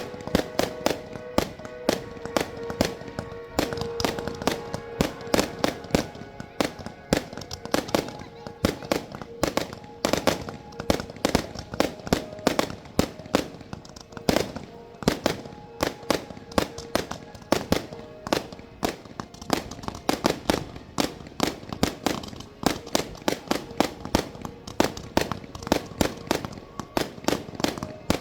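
Fireworks display: a continuous barrage of sharp bangs and cracks, several a second, with music playing underneath.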